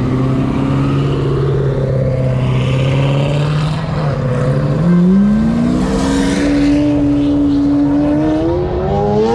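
A car engine running steadily, then revving up: its pitch climbs about five seconds in, holds, and climbs again near the end.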